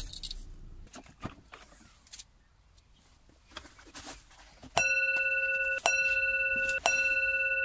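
A few clicks and handling noises, then, about five seconds in, a steady electronic warning tone starts and repeats in pulses about a second long with very brief breaks between them.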